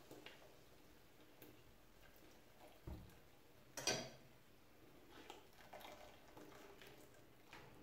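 Near silence with light handling of kitchen utensils: a dull thump about three seconds in and a sharp clack about a second later, the loudest sound. Then faint ticks as a spoon works blended chile through a plastic strainer set over a pot.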